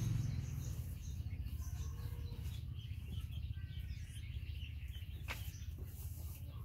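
Birds chirping faintly over a steady low rumble, with one sharp click about five seconds in.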